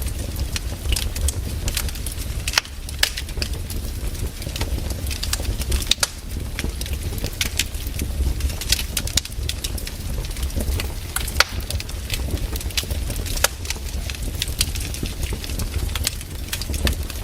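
Firewood burning in a fire, crackling with irregular sharp pops and snaps over a steady low rumble of the flames.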